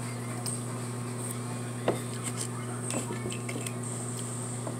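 Spoons clicking and knocking against a clear plastic food container: a handful of light, irregular clicks, the sharpest about two seconds in, over a steady low electrical hum.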